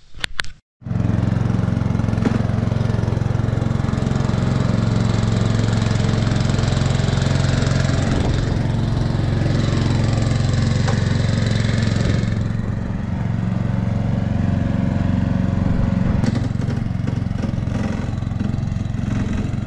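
Ride-on lawn mower's engine running with the blades engaged, very noisy. One cutting blade is barely touching the cutting deck, and the deck rings like a sound box.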